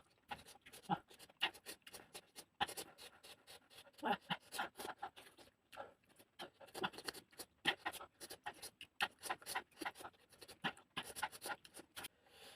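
Close-up mouth sounds of a person eating fish: chewing and wet lip smacking, a dense run of short, irregular clicks.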